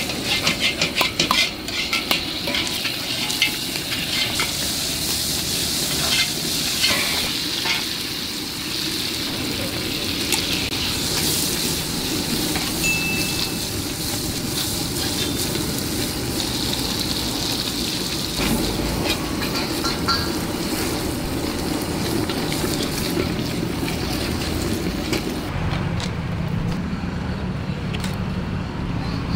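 Frying in a large steel wok: oil and ingredients sizzling while a metal spatula stirs and scrapes against the pan, with quick clinks in the first two seconds. Near the end the sizzle drops away, leaving a low steady hum.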